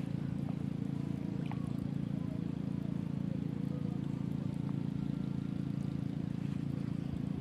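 Steady low hum of a running engine, unchanging throughout.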